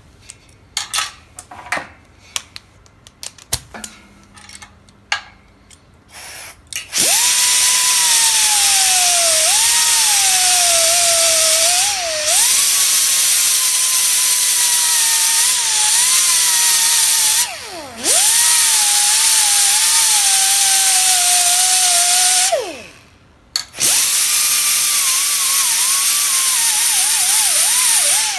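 A few clicks and knocks, then a high-speed grinder grinding down a leaking spot in a cast aluminum weld, its whine sagging in pitch under load and recovering. It runs in three stretches, stopping briefly twice.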